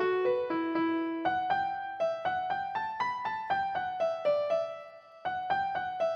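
Background music: a gentle keyboard melody of separate plucked or struck notes, a few a second, with a short pause about five seconds in.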